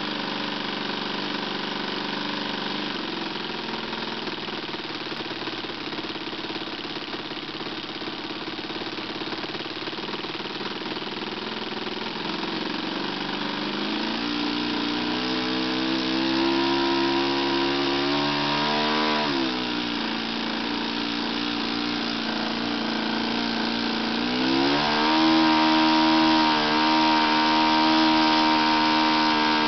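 Magnum 52 four-stroke glow engine on a model airplane, running in during its break-in. It runs steadily at low speed for about the first half, is throttled up about halfway through, drops back briefly, and is opened up again to run at the higher speed near the end.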